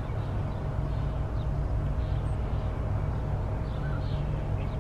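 Diesel locomotives hauling a loaded freight train, working hard under load in the distance: a steady low rumble. Small birds chirp now and then over it.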